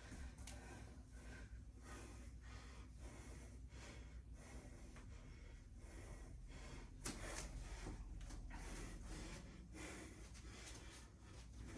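A woman breathing hard in quick, even gasps, about two a second, out of breath from exercise; the breaths get louder about seven seconds in.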